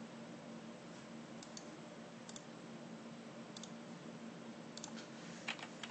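Computer mouse button clicks: a few faint, spaced-out pairs of ticks, then louder clicks near the end, over a steady low hum.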